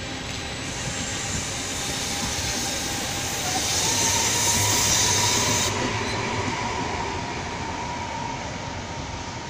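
Trenord double-deck electric regional train moving along the station track: a steady electric whine rises in pitch about three and a half seconds in, over wheel-on-rail noise with a high hiss that cuts off suddenly near six seconds. It is loudest about five seconds in, then eases off as the train draws away.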